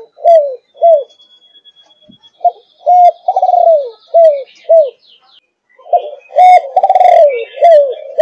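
Spotted dove cooing in phrases: the end of one phrase, then two full phrases of about five short coos each, the third coo in each longer and falling in pitch, with a pause of about a second between phrases.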